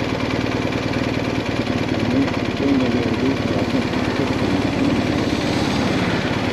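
BMW GS Adventure motorcycle engine idling steadily while the bike stands still.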